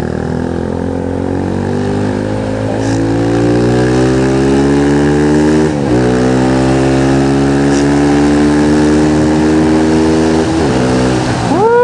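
Motorcycle engine pulling under acceleration, its pitch climbing steadily, with a gear change about six seconds in. The pitch climbs again after the shift and drops at a second gear change near the end.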